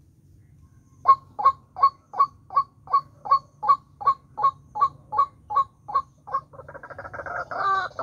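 White-breasted waterhen calling: a steady series of short, evenly spaced notes, about three a second. From about six seconds in it turns into louder, denser, rougher chattering.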